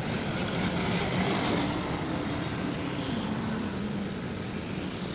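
Steady vehicle engine noise: an even rushing sound with a low hum that sinks slightly in pitch.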